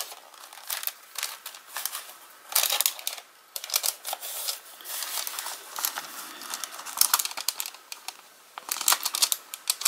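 A paper envelope and card page rustling and crinkling in the hands as the page is slid into the envelope, in short, irregular crackly bursts that get busier near the end.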